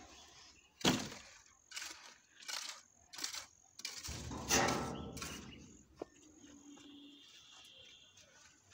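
Steel trowel scraping and tapping on wet concrete while the top of a freshly poured concrete beam is smoothed. Four short, sharp scrapes come in the first few seconds, then a longer, louder scrape about four seconds in.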